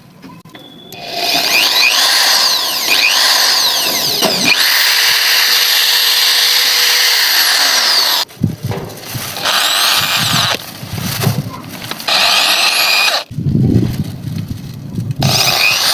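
Power drill running hard in several bursts: one long run of about seven seconds, then shorter runs after a break. Its whine sweeps up and down in pitch as it goes.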